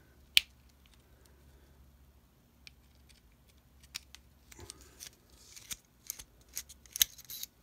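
Small metal pick clicking and scraping against a Zippo lighter's chrome-plated insert as it is prised apart at the bottom. One sharp click about half a second in, then a run of light clicks and scrapes over the last three seconds.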